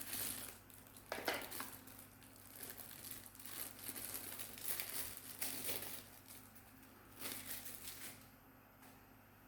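Packaging crinkling and rustling in irregular bursts as a small 12-in-1 multi-tool is unwrapped by hand, the loudest crackle about a second in.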